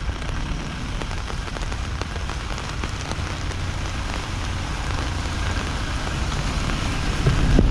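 Steady rain falling, with many small drop hits ticking on a nearby surface. A low engine rumble comes up near the end.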